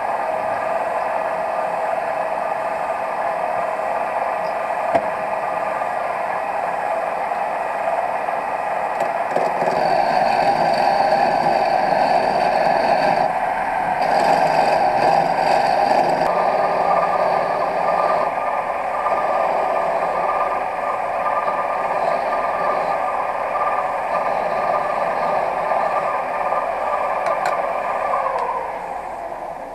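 Sieg C3 mini lathe running steadily, its motor giving a constant whine, while a tool works the spinning wooden pen blank with a scraping hiss that grows louder for several seconds in the middle. The lathe winds down right at the end.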